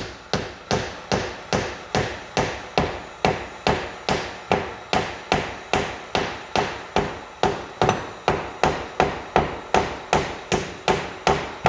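Hammer tapping a wooden wedge in behind a granite backsplash, a steady run of sharp blows about two and a half a second, driving it between the stone and the wall to break the old caulking's hold.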